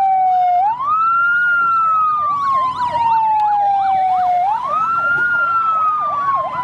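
Electronic fire-engine siren. A wailing tone rises sharply and slowly falls, twice, about four seconds apart, over a fast warbling yelp of about three sweeps a second.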